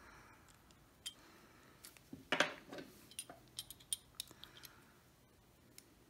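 Small metal clicks and ticks of a bolt action pen's clip and back cap being turned in the fingers while the clip is rotated to seat in its notch, with a louder click a little over two seconds in and a run of light ticks after it.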